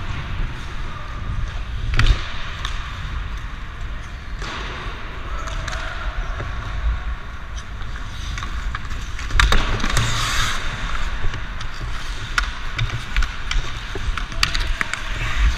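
Ice hockey skates carving and scraping the rink ice, with sharp clacks of sticks on the puck and ice, heard close up from a player's body-worn camera. A loud crack comes about two seconds in, and a longer hissing scrape near ten seconds.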